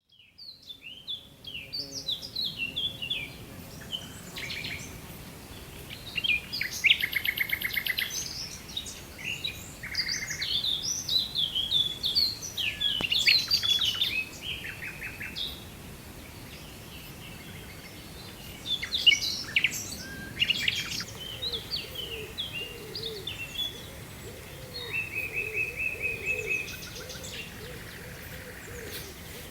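Several wild songbirds singing together, a busy mix of chirps, trills and quick sweeping phrases over a steady background hiss. A fainter, low repeated call runs under them in the last few seconds.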